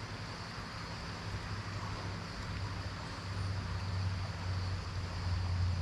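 A low, steady motor hum that grows louder through the second half, over a constant hiss.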